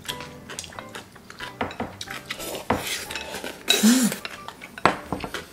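Chopsticks and a spoon clicking and scraping against glass bowls as two people eat noodles, with slurping; the loudest sound is a noisy slurp about four seconds in.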